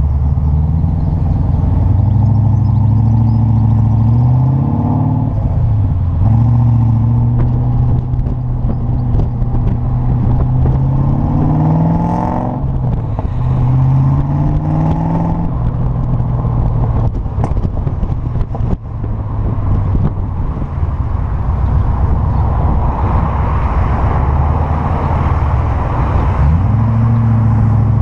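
Triumph TR7's 3.9-litre V8 through a single-bore exhaust, pulling hard. Its note climbs in pitch and drops back several times, like accelerating up through the gears. A rougher, steadier stretch in the middle gives way to another long climb near the end.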